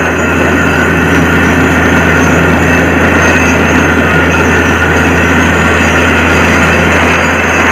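Borewell drilling rig running with a loud, steady drone and a constant low hum that does not change.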